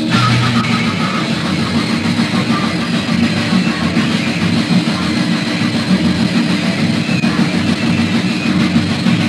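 Hardcore punk band playing loud, raw and rough on a lo-fi demo-tape recording, with guitar, bass and drums in a dense, noisy wall of sound and no vocals. The full band comes in right at the start.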